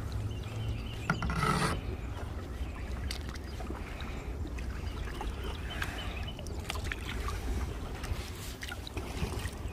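Canoe being paddled: the paddle dips and splashes through the water, with scattered light knocks and clicks of gear and paddle against the hull over a steady low rumble. A louder splash comes about a second and a half in.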